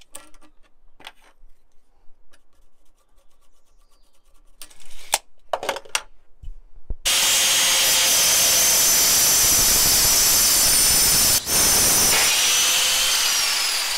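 A few light taps and clicks of handling, then about seven seconds in an angle grinder with a cutting disc starts cutting through an 8 mm stainless steel bar: a loud, steady, harsh grinding with a high whine. Near the end the whine falls in pitch.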